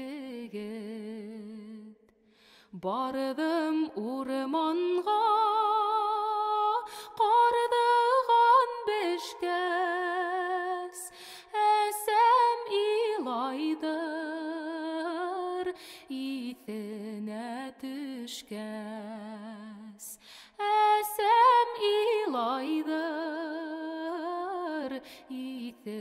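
A woman singing a slow, unaccompanied melody in long held notes with heavy vibrato, after a short pause about two seconds in.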